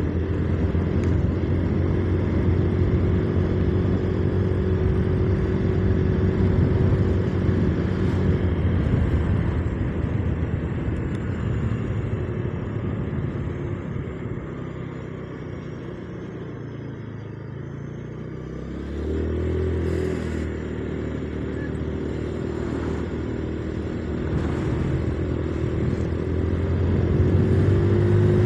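Motorcycle engine running while riding, with wind noise over the microphone. The engine eases off and drops in pitch in the middle, then picks up again about two-thirds of the way through.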